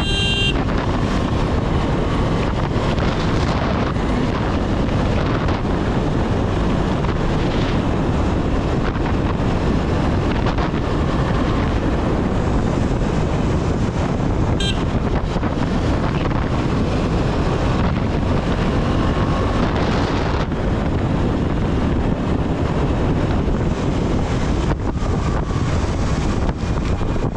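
KTM 250 Duke motorcycle's single-cylinder engine running under way, mixed with heavy wind buffeting the microphone. A brief click about fifteen seconds in.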